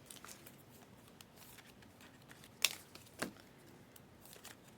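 Basketball trading cards and their packaging being handled: faint rustles and light clicks, with two sharper snaps about two and a half and three seconds in.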